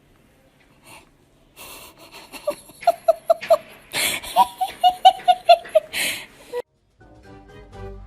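A baby laughing in two runs of quick, evenly repeated high-pitched 'ha' pulses, with breathy gasps between them.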